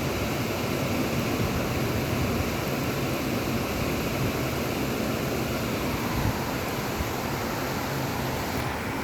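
Strong storm wind with rain, making a steady, dense rush of noise without any break.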